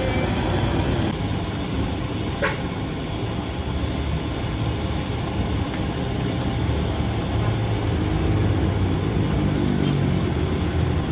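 A motor vehicle's engine running steadily with a low rumble, and a single sharp click about two and a half seconds in.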